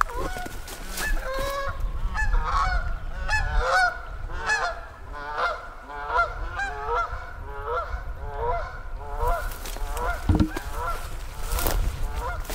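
Several geese honking: many short calls in quick succession, overlapping one another, thinning out about nine seconds in.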